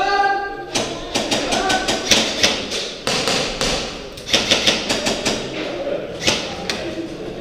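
Airsoft guns firing several short, rapid bursts of sharp cracks.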